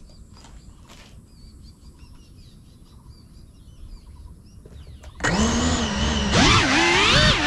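Birds chirping faintly over outdoor ambience. About five seconds in, the brushless motors of a GEPRC CineLog 35 cinewhoop start suddenly with a loud whine, heard close from the drone's own camera. The pitch holds for a second, then bends up and down as the throttle is worked.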